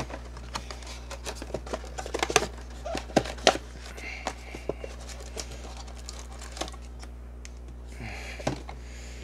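Cardboard trading-card box being handled and opened by hand: quick sharp clicks and taps of card stock, densest in the first few seconds, with brief rustles of packaging about four and eight seconds in, over a steady low hum.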